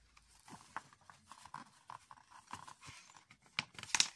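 Faint handling noises of a paper picture book, soft scattered clicks and rustles, then a louder rustle as a page is taken and turned near the end.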